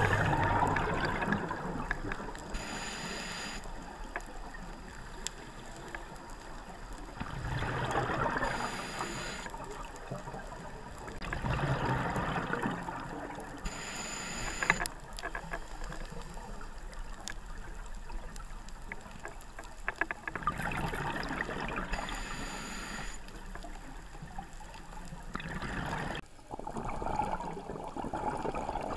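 Scuba regulator breathing recorded underwater: a high hiss on each inhale and a rush of exhaled bubbles on each exhale, repeating every few seconds for about five breaths.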